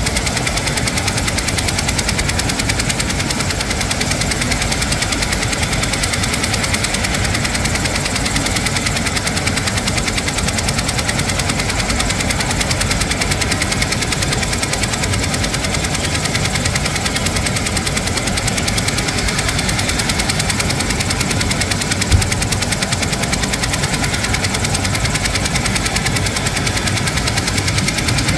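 Military helicopter on the ground with its turbine engines and four-blade main rotor running steadily, a fast, even blade beat throughout. One brief knock about 22 seconds in.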